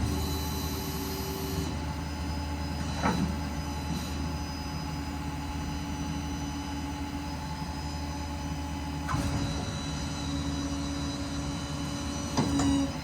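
PTO-driven hydraulic system of a Stellar 5521 crane on a Ford F-550 running off the idling 6.7 Power Stroke diesel. It makes a steady hum and whine whose tones drop out and return as the crane controls are worked, with a few short clunks.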